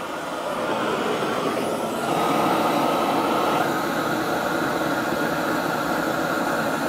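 Grill Blazer Grill Gun propane torch burning with a loud, steady rushing noise, a little louder from about two seconds in.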